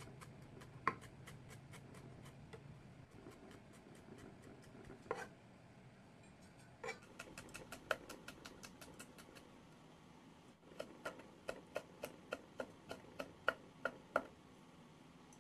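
Chef's knife chopping on a wooden cutting board, mincing vegetables: a quick, even run of light taps, then after a brief pause a slower series of sharper, louder strokes.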